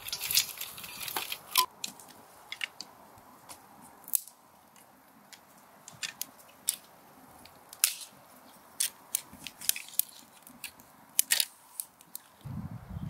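Sharp, irregular snapping and crackling of dry twigs, dense in the first second and a half, then scattered single cracks: a small wood fire burning and dry sticks being handled and broken to feed it.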